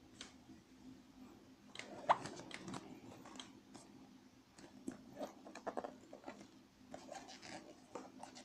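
Packaging being handled and opened: scattered crinkles, rustles and clicks of box and wrapping, in irregular clusters, over a faint steady hum.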